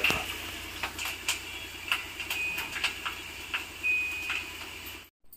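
Tempering frying in hot oil in a kadai: a faint steady sizzle with scattered light pops and clicks, and two brief high steady tones. The sound cuts off abruptly near the end.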